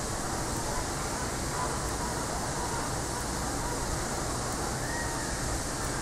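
Steady outdoor background noise: an even hiss over a low rumble, with no distinct sound standing out.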